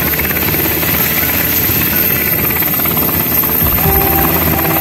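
Sikorsky UH-60L Black Hawk helicopter running close by, its four-blade main rotor beating rhythmically over the rush of its twin turboshaft engines. Steady pitched tones join near the end.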